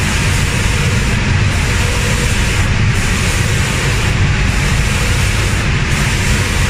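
Automatic paint spraying machine running in its booth: a steady low rumble of fans and motors under an even hiss of spraying air. The highest part of the hiss drops out briefly about every second and a half.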